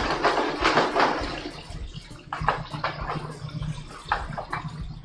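A metal spoon stirring risotto in a sauté pan on a restaurant range, scraping and clicking against the pan several times, over the steady hum of the kitchen exhaust hood. A hiss of noise fills the first second.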